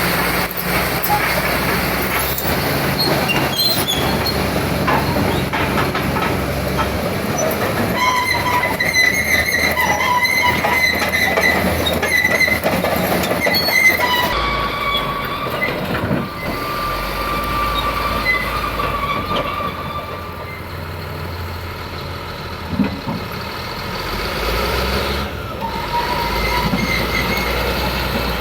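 Caterpillar D7R crawler bulldozer on the move: the diesel engine drones while the steel tracks clank and squeal, with high squealing tones strongest through the middle. The engine note changes about halfway through.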